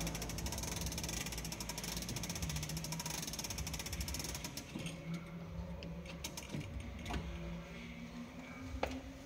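Grandfather clock being wound with a hand crank, the winding ratchet clicking rapidly as a weight is drawn up. The rapid clicking stops a little past halfway, leaving a few separate clicks.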